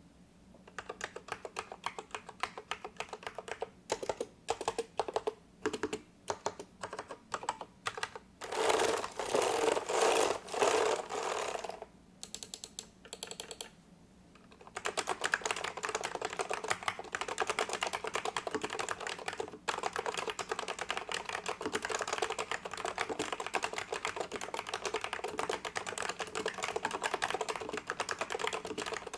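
Typing on a vintage Unisys Keycorp K32B keyboard with Alps SKCL Yellow linear switches and thick low-profile keycaps. It starts with separate, spaced keystrokes, then a louder, dense flurry about nine seconds in and a short lull, then steady fast typing from about fifteen seconds in.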